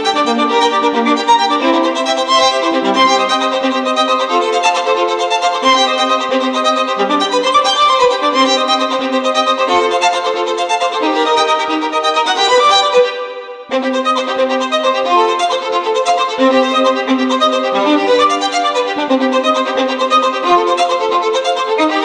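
Background instrumental music led by a violin melody, dropping out briefly about two-thirds of the way through before carrying on.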